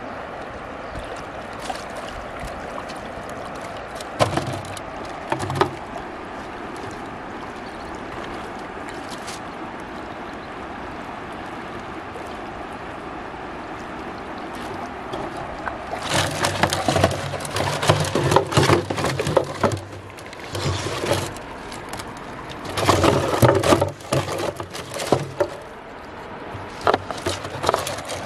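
Steady river-bank water and wind noise with a couple of brief knocks. From about halfway on, caught fish thrash and splash in a plastic tub of water among plastic-bottle traps, giving repeated irregular splashing, plastic clattering and thumps.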